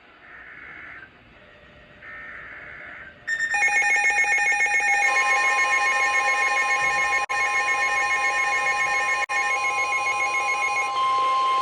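NOAA Weather Radio SAME data header: two short, buzzy data bursts in the first three seconds. Then a weather radio's electronic alert alarm sounds loudly with several shrill tones, pulsing at first. The steady 1050 Hz warning alarm tone joins about five seconds in and is left alone near the end, heralding a broadcast warning.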